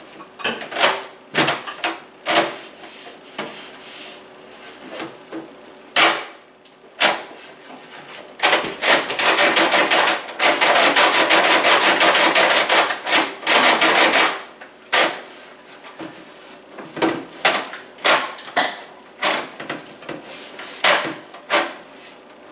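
Knocks and clatter of kitchen items and refrigerator bins being handled and set down, with a dense continuous noise lasting about six seconds midway.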